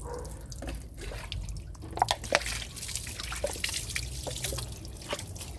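Water dripping and trickling in irregular drops while the car's suspension and wheel well are washed, over a low steady hum.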